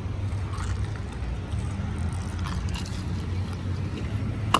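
Steady low rumble of road traffic, with a single sharp tap just before the end.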